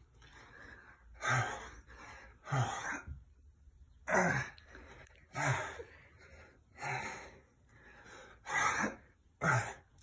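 A man's forceful, gasping exhalations, each with a short low grunt at its start, repeating about every second and a half, about seven in all. These are hard breaths from exertion, one with each push-up, late in a long set.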